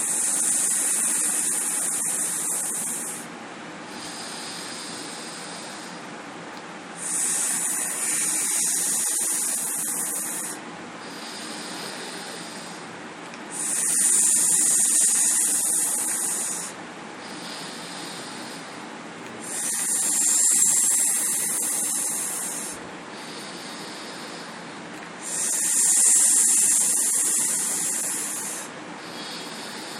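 A man's breathing exercise: five long 'sss' hisses breathed out hard through the teeth with the tongue between them, each about three seconds long and coming about every six seconds. Quieter gaps lie between, when he breathes in.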